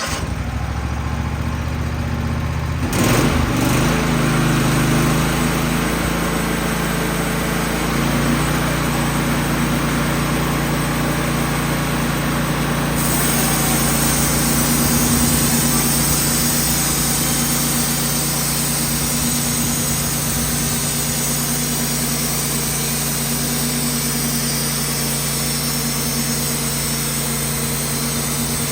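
Wood-Mizer portable bandsaw mill's engine running, revving up about three seconds in, then running steadily under load as the band blade saws through a soft maple log.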